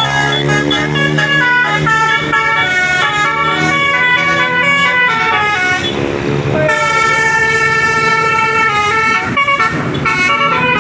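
Basuri telolet horn on a Putra RB bus playing a tune: several horn tones sounding together in quick stepped notes, then longer held chords. About six seconds in the tune breaks briefly into a hiss.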